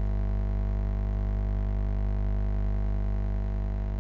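Steady electrical mains hum with many evenly spaced overtones, unchanging in pitch and level.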